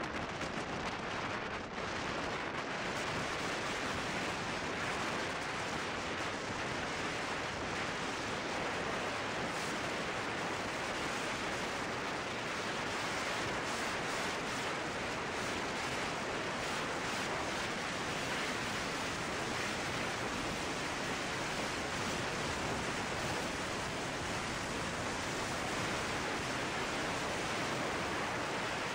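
Steady rush of wind over the camera microphone on a motorcycle riding at highway speed, mixed with road noise, with no clear engine note.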